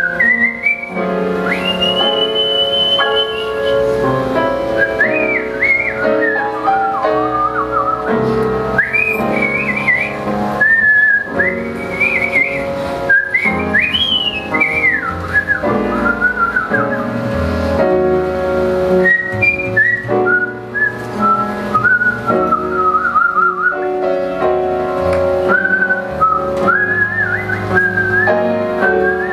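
A woman whistling a melody into a microphone, sliding and scooping between notes, with a high held note a couple of seconds in. A swing big band plays sustained backing chords and a bass line underneath.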